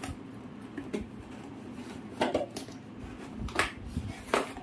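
Cardboard headphone box being handled and opened, the inner box sliding out of its sleeve, with several sharp scrapes and knocks, the loudest about two, three and a half, and four and a half seconds in.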